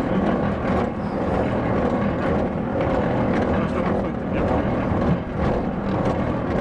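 Hand-operated rail draisine rolling along the track: steel wheels rumbling steadily on the rails, with scattered clicks and clatter.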